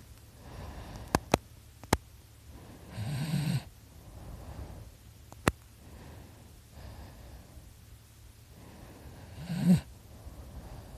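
A sleeping person snoring: two heavy snores about six seconds apart, the second the louder, with softer breathing between them. A few sharp clicks come in the first half.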